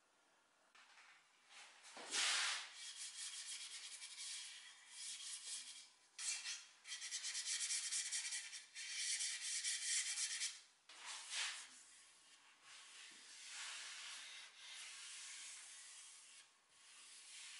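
Stiff paintbrush bristles scratching back and forth over bare wooden chair rails as shellac is brushed on, in quick rasping strokes. Near the end comes a softer, steadier rubbing of a pad along the wood.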